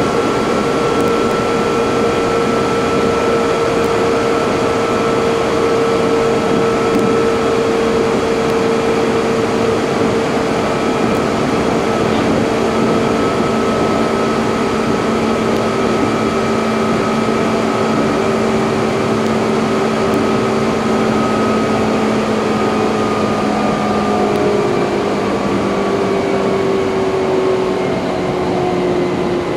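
Running noise inside a Meitetsu 6000 series electric train car: a steady rumble of wheels on rail with a motor and gear whine that slowly falls in pitch as the train eases its speed.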